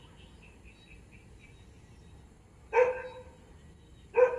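A dog barking twice, once about three seconds in and again near the end, with faint high chirping early on.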